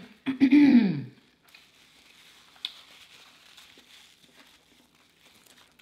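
Paper napkin crinkling softly as greasy fingers are wiped with it, with one small click partway through.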